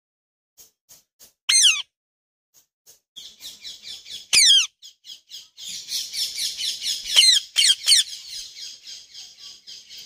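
Indian ringneck parakeet calling: sharp falling screeches about 1.5 and 4.5 seconds in, with a fast, rapid chatter building up from about 3 seconds in. More screeches come near 7 and 8 seconds, and the chatter then fades.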